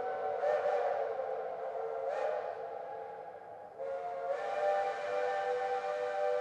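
Steam locomotive chime whistle blowing a long, steady chord of several notes. It fades a little midway and swells back up about four seconds in, with two brief hissing surges in the first half.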